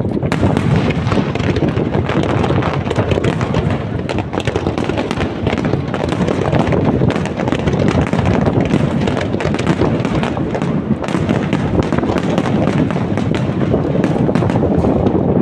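A dense barrage of aerial firework shells bursting, with many overlapping bangs and crackles following one another rapidly and without a break.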